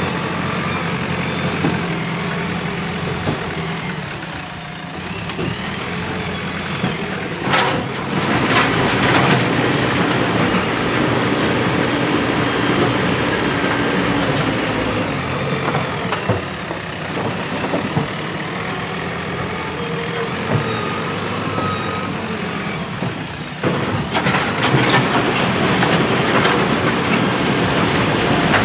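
JCB 3DX Plus backhoe loader's diesel engine running steadily while the machine works. It gets louder, with some sharp noises, about eight seconds in and again near the end.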